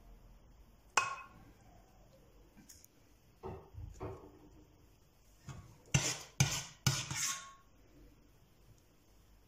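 Kitchen clatter: a metal spoon clinks once against the dishware about a second in, ringing briefly, then a run of light knocks and clicks as dry biscuits are set down in a glass baking dish, sharpest and loudest in a quick cluster about six to seven seconds in.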